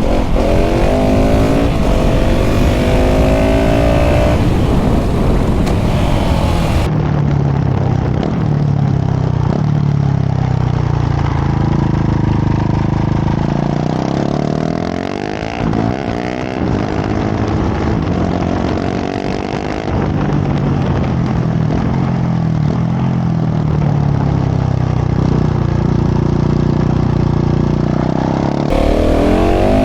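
KTM 690 SMC R supermoto's single-cylinder LC4 engine through a full LeoVince exhaust, accelerating hard at full throttle on short 15/45 gearing. The revs climb again and again as it pulls through the gears, dropping back twice in the middle before rising again.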